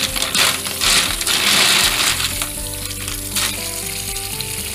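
Hard shells of small mangrove horn snails (siput sedut) clattering against one another and a stainless-steel sink as a hand stirs them under a running tap, with the rush of water. The clatter is densest in the first half and thins out later.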